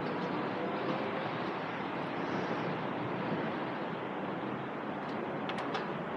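Steady, even noise of a large open station platform's ambience, with a few faint high clicks near the end.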